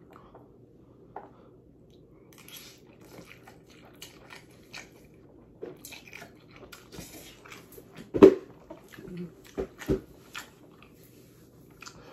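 A person eating spicy noodles from a bowl: chewing and mouth noises with scattered small clicks, and one louder sharp sound about eight seconds in.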